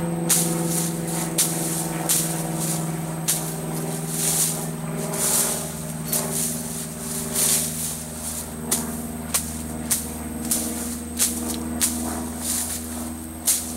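Machete hacking through overgrown brush: repeated sharp whacks, roughly one every half-second to a second, each with a swish and rustle of leafy stems.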